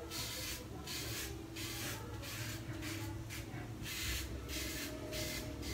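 Mühle R41 double-edge safety razor scraping short stubble off a lathered scalp: a run of short rasping strokes, about two a second.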